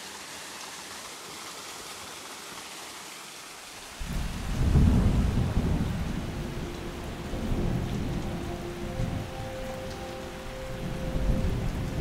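Steady hiss of falling rain, then about four seconds in a loud rumble of thunder breaks in suddenly and rolls on over heavy rain.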